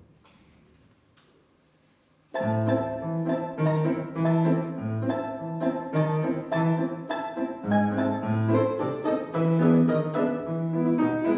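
Near quiet for about two seconds, then a plucked string instrument and a piano start together and play a jazz piece, the low piano notes holding under crisp plucked notes in a steady beat.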